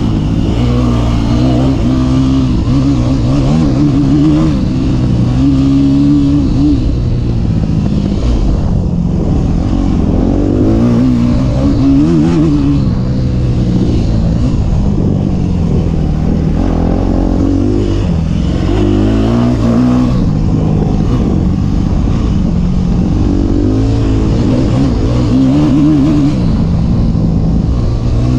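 Yamaha YZ250F dirt bike's single-cylinder four-stroke engine being ridden hard, heard from the rider's helmet camera. Its pitch climbs and drops every second or two with throttle and gear changes.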